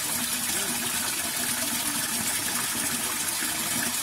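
Water rushing steadily through an irrigation ditch culvert, a continuous even gush.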